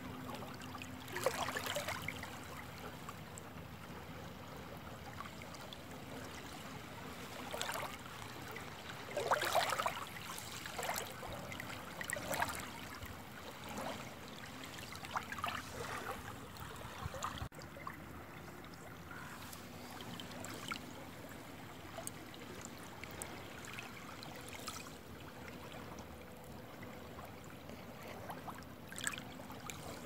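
Water lapping at shoreline rocks: a soft steady wash with louder irregular splashes every few seconds.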